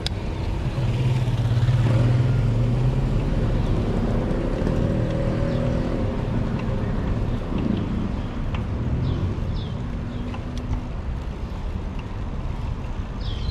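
Motor vehicle engine running with steady road noise, loudest in the first few seconds. A few short high chirps come near the end.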